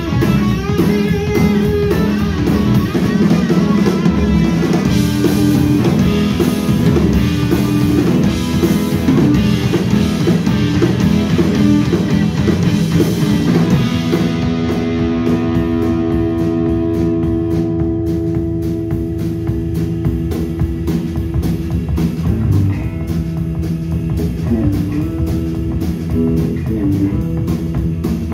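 Rock band playing live, instrumental: electric guitar over electric bass and drum kit. About halfway through, the cymbal wash drops away and long held notes ring over the bass and drums.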